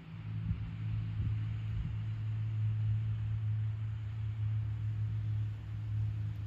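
A steady low mechanical hum, engine-like, that comes in at the start and holds at an even pitch.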